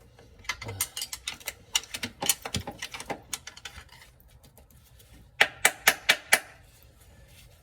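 Metal-on-metal clicks and taps as a tool works at the band anchor and input drum inside a GM automatic transmission case, the anchor refusing to come out. Irregular light clicks for the first three seconds or so, then a quick run of five sharp clicks a little past five seconds in.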